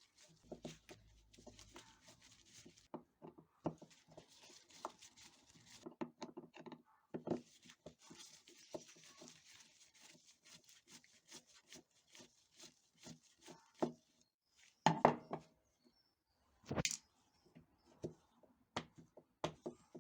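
Small parts and hand tools being handled on a workbench: scattered clicks and knocks with stretches of rubbing or scraping, and a few louder knocks about three-quarters of the way through.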